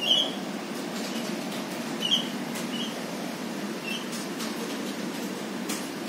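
Javan myna giving short, sharp squeaky calls, four in all: one right at the start, the loudest, another about two seconds in, then two fainter ones before the four-second mark. A steady low rumble runs underneath.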